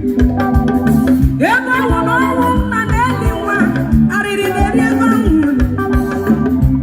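Band music with a steady drum beat and sustained keyboard chords, and a singing voice that sweeps up into a held note about a second and a half in.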